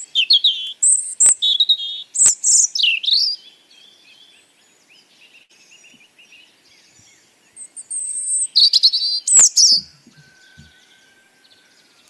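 European robin singing: high, thin, quickly warbling phrases in two spells, one at the start and one about eight seconds in, with a pause between them. A few sharp clicks fall among the phrases.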